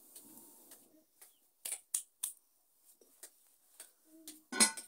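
Handling noises at a wood cooking fire: several sharp separate clicks and knocks, with a louder clatter about four and a half seconds in.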